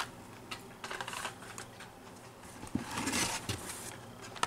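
Blister-carded die-cast toy cars being handled and pulled out of a cardboard shipping case: light clicks and plastic-and-card rustling, with a longer rustle about three seconds in.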